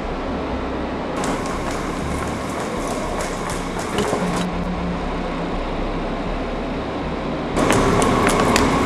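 Steady rumble of an underground S-Bahn station with scattered clicks. Near the end a louder electric S-Bahn train comes in, with a steady whine and rattling as it runs along the platform.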